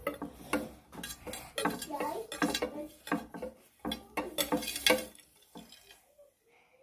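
Rapid, irregular clatter of small hard objects knocking on a marble tabletop, stopping about five seconds in.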